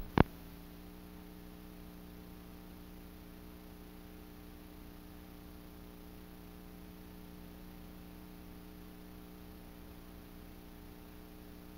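A sharp click just after the start, then a steady faint electrical hum with a light hiss: the sound of blank videotape after the recording ends.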